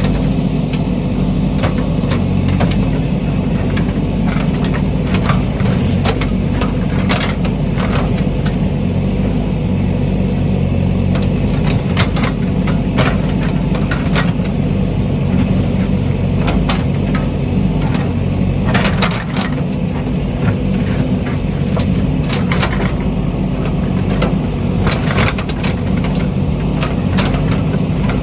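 Diesel engine of a JCB backhoe loader running steadily, with short sharp knocks and clatters at irregular intervals.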